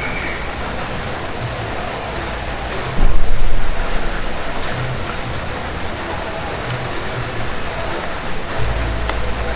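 Heavy rain pouring steadily. A sudden loud low rumble comes about three seconds in and fades within a second or so, and another low rumble comes near the end.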